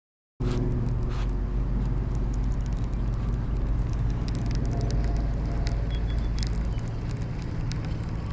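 A steady low engine drone begins abruptly about half a second in, with scattered light clicks from a baitcasting reel being handled.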